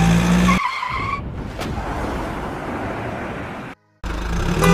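Cartoon car sound effect: a brief tyre screech, then a steady rushing vehicle noise that cuts off suddenly near the end.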